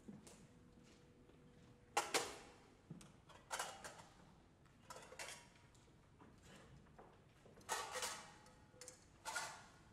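Kitchenware played as percussion: scattered single metallic clinks and taps, some in quick pairs, each ringing briefly.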